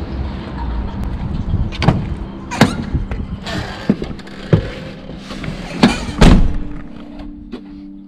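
Motorhome engine rumbling with a steady hum, heard from the cab, broken by irregular knocks and thuds; the loudest thud comes about three-quarters of the way through.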